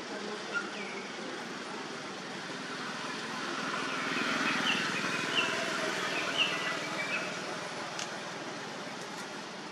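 Outdoor ambience: a steady rushing noise that swells for a few seconds in the middle and then fades, with a few short high chirps during the swell and two faint clicks near the end.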